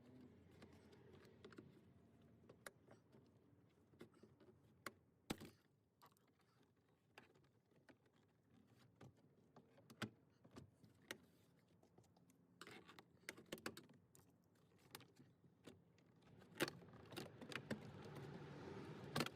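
Faint, scattered plastic clicks and taps from a 2012 Ford Fusion's interior door trim panel being pried loose from its clips with a flathead screwdriver. A faint steady rustle comes in near the end.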